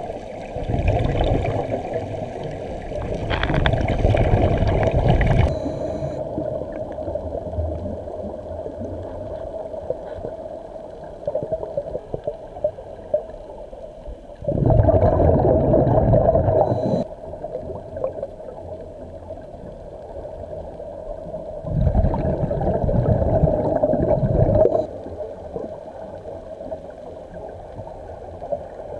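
Scuba regulator exhaust bubbling from the diver's exhaled breaths: three long gurgling rushes of bubbles several seconds apart, over a steady underwater hum.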